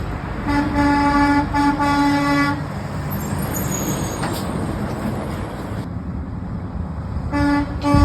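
Truck horn honking: two long blasts back to back in the first few seconds, then two short toots near the end, over the rumble of passing traffic.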